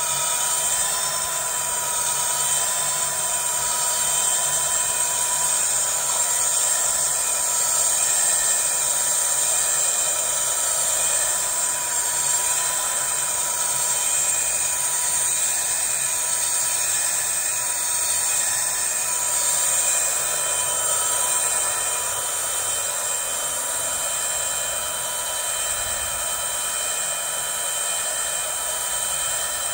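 Leaf 60V 3000W direct-drive brushless hub motor spinning its rear wheel with no load at speed, giving a steady electric whine made of several high tones that hold their pitch.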